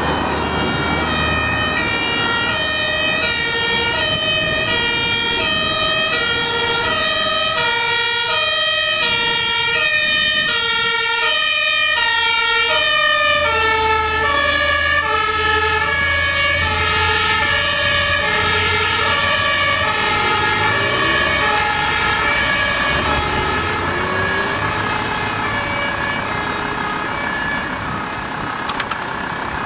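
German fire engines' two-tone sirens (Martinshorn), switching between a high and a low tone about every three quarters of a second. The low diesel rumble of a truck's engine grows louder as it passes about halfway through.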